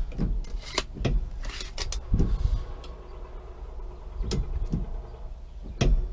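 Irregular clicks and knocks of a steel tape measure being held against a tractor brake pedal while the pedal is pushed down to check its free play, over a low rumble.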